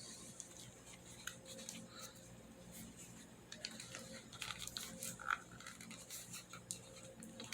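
Faint scattered clicks and rustles of a Kindle tablet being handled and taken out of its case, with one slightly louder tick about five seconds in.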